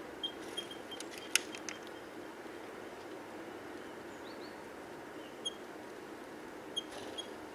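Small songbird calling in short, evenly spaced high notes about three a second, which stop soon after the start; a quick cluster of sharp taps follows about a second in, then a few brief rising chirps and single call notes, over a steady low hum.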